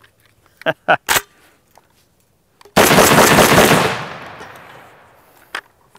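A Fostech Origin 12 semi-automatic 12-gauge shotgun firing a fast string of shots from the hip, the reports running together for about a second and then echoing away. Before that come a few sharp clicks of the gun being handled.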